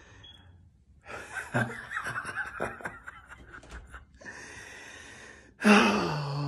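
A young child laughing hysterically in choppy bursts, then drawing a long wheezing, gasping breath, and breaking into a loud burst of laughter near the end.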